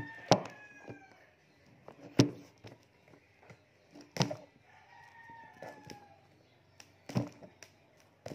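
Sharp knocks and clicks from a boxed shaver being handled and set down on a table, four loud ones a couple of seconds apart. A rooster crows in the background twice, once near the start and once past the middle.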